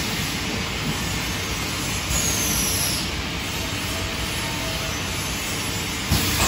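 Rectangular-tub piston filling and capping machine running, a steady mechanical noise, with one sharp knock near the end.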